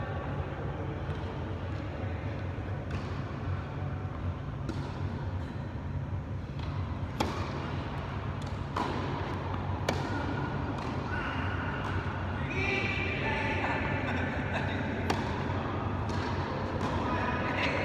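Tennis ball struck by racquets and bouncing on an indoor court during a doubles rally: several sharp hits spaced a second or more apart, over a steady low hum. Voices come in during the second half.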